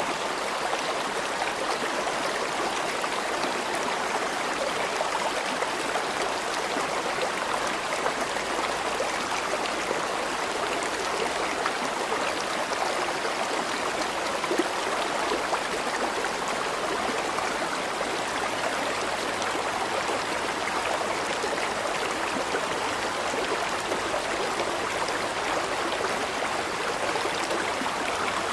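River water flowing in a steady, unbroken rush, with no change through the stretch.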